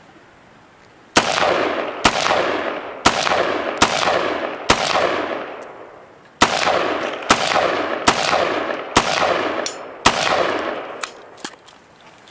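AR-15-style semi-automatic rifle fired in single shots, about ten in all, roughly one a second in two strings of five with a short pause between them. Each shot is sharp and loud and rings out in a long echo.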